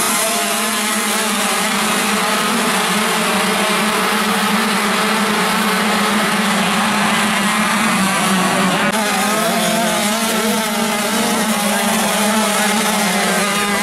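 Several motocross bikes racing at once, their engines revving up and down with overlapping, wavering pitches.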